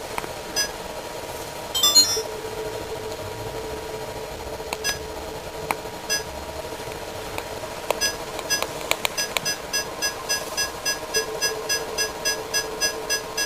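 Samsung Navibot SR8845 robot vacuum running with a steady motor hum. A few isolated short beeps are followed, from about two-thirds of the way in, by rapid repeated beeping at about two to three beeps a second.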